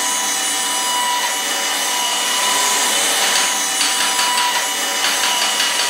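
Circular table saw running steadily, its blade cutting through a block of wood.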